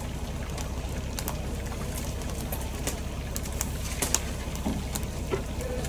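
Outdoor ambience: a steady low rumble with scattered sharp clicks, and a bird calling faintly a few times near the end.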